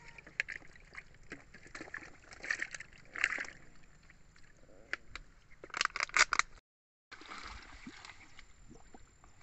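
Shallow water splashing and sloshing, with scattered clicks and rattles, as fish are shaken out of a wire-mesh fish trap into a net-covered basin. A louder run of splashes comes about two-thirds through, just before the sound drops out briefly.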